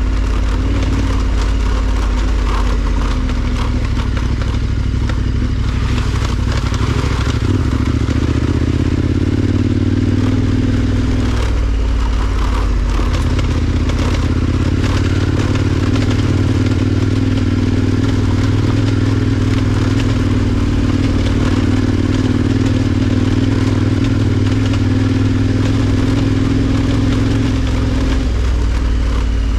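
KTM 1290 Super Adventure R's V-twin engine pulling the bike up a dirt track, its note rising and falling with the throttle, and briefly dipping about twelve seconds in and again near the end. Crackle and clatter from the tyres on the loose dirt and leaves run underneath.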